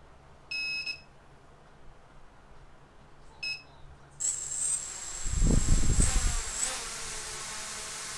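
Small FPV quadcopter beeping twice, a longer beep then a short one; about four seconds in, its brushless motors spin up to a steady high-pitched buzzing whine as it idles on the ground, with bursts of low rumble for a second or so after the spin-up.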